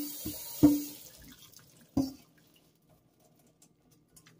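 Pasta being drained in a metal colander over a stainless steel sink: the rinsing water from the tap stops within the first half-second, and the colander knocks three times against the sink as it is shaken, each knock with a short metallic ring, followed by faint dripping.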